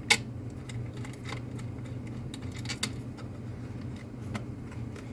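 A few small, sharp clicks and taps of a nut and screw being handled and fitted by hand, the loudest just after the start, over a steady low hum.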